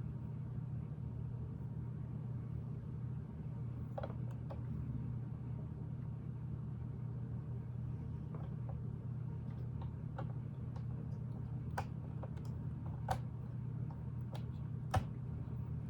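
Plastic Lego pieces clicking and tapping now and then as parts are handled and pressed together, over a steady low hum.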